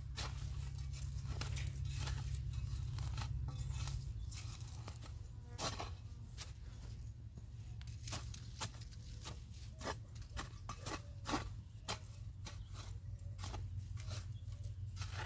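Cassava plant being harvested: irregular crunching, snapping and tearing of stems, roots and soil. A low rumble runs under it for the first four seconds or so.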